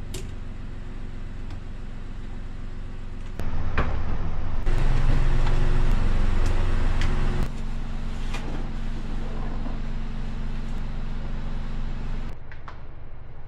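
A vehicle engine idling steadily, with scattered clicks and knocks. It is louder for a few seconds in the middle.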